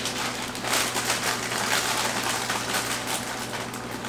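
Clear plastic bag of dog treats crinkling and rustling as it is handled, a dense rustle with many small crackles.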